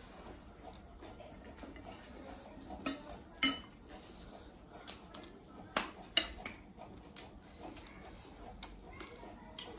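Metal spoons scraping and clinking against glass plates as chatpat is scooped up, with a handful of sharp clinks scattered through, the loudest about three and a half and six seconds in.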